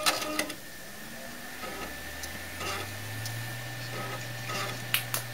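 Dell Optiplex 390 desktop powering on: a click of the power button, then its fans spinning up, a low hum that rises in pitch over about two seconds and settles steady, with a faint high whine. The rear exhaust fan's sleeve bearing has just been lubricated. A couple of sharp clicks come near the end.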